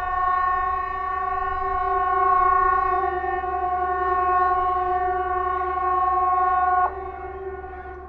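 Hesa Fredrik civil defence siren sounding one steady blast, a chord of several held tones that rises quickly into pitch and cuts off sharply after about seven seconds: one blast of the seven-second on, fourteen-second off "Important message to the public" warning signal. The same tones carry on more faintly after it stops.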